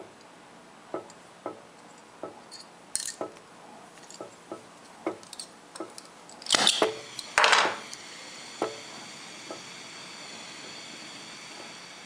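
Vintage Victor J27 oxy-acetylene torch being lit: light clicks and taps as it is handled, two loud bursts of gas and ignition about six and a half and seven and a half seconds in, then the lit flame's steady hiss.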